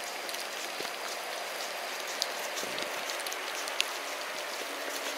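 Steady soft outdoor hiss with scattered faint ticks.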